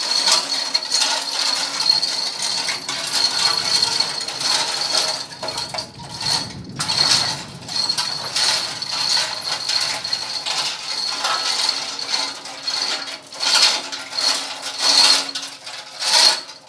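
Manual chain block (chain hoist) of 2-ton capacity being hauled by hand: the steel chain rattles and clinks through the block with a ratchet-like clicking, in uneven surges, as it lifts a steel WF beam.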